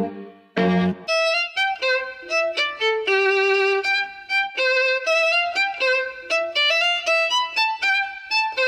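Background music: a solo violin playing a quick melody of short notes, after a low note or two in the first second.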